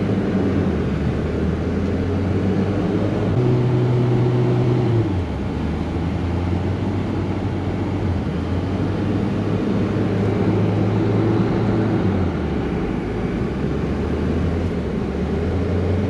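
Dodge Ram 50 mini truck's Mitsubishi G54B four-cylinder engine running under way, heard from inside the cab over steady road and tyre noise. Its note steps up in pitch and drops back several times: about three seconds in, around the middle, and again near the end.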